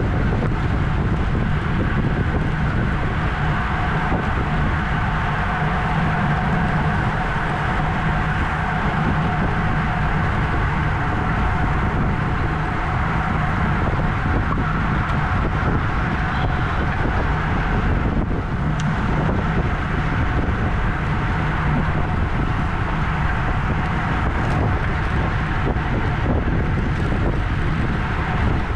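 Steady wind rush over the microphone of a camera on a racing bicycle ridden at speed in a criterium, with a steady hum of tyres and drivetrain beneath it.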